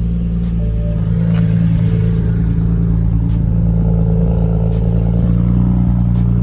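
BMW 335i (E92) turbocharged 3.0-litre inline-six idling steadily on a cold start, just after firing up.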